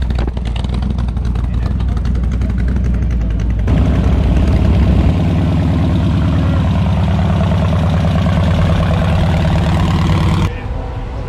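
Hot rod engines idling with a steady low rumble as show cars roll slowly past. About a third of the way in the sound switches abruptly to a louder, open-engine hot rod, and near the end it drops to a quieter car.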